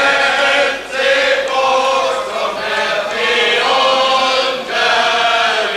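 A group of people singing together in the clubhouse bar, a celebration song in held notes, phrase after phrase, with short breaks between.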